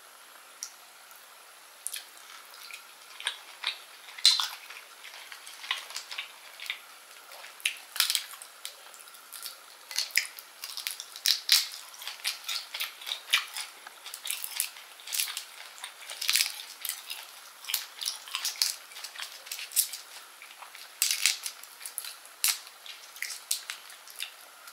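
Shell of a baked shrimp cracking and crackling as it is peeled apart by hand, close to the microphone, in many sharp, crisp crackles that come quickly and irregularly.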